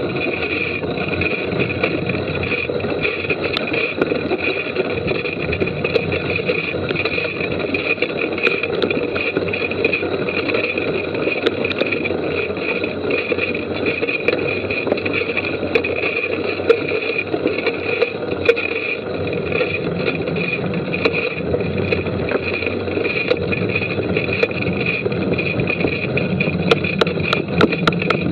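Mountain bike ridden along a wet, muddy trail, heard from on the bike: steady tyre, wind and drivetrain noise, with scattered clicks and a quicker run of sharp clicks and knocks near the end.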